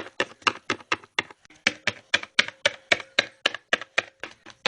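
A quick, even series of sharp taps, about four or five a second.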